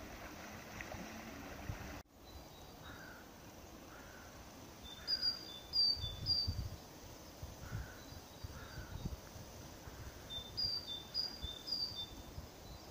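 Small birds calling: two short runs of quick high notes, with lower single calls in between, over wind gusting on the microphone. A low steady hum fills the first two seconds before the sound cuts.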